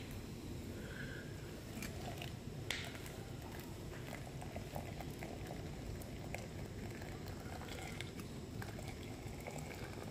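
Camping gas stove's burner running steadily while just-boiled water is poured from a small kettle into a metal mug, with a couple of light knocks in the first three seconds.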